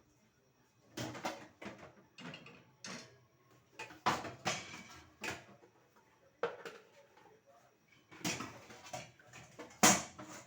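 Pots, pans and lids knocking and scraping together as they are handled and stacked away. There are about ten separate clatters, and the loudest clank comes near the end.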